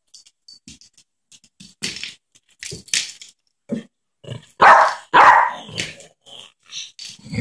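Yorkshire terrier barking, with two loud barks in quick succession about five seconds in and softer yaps around them, amid light clicks and rattles.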